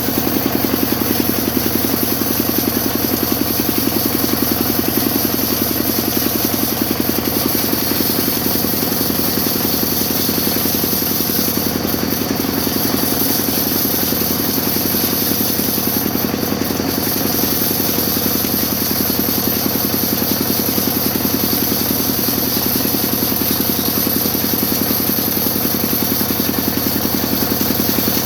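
Sawmill machine running steadily: a constant engine-like drone with a steady high whine.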